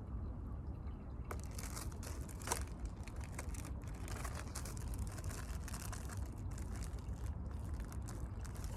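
Close-up crinkling and rustling of something being handled, from about a second in, over a steady low rumble.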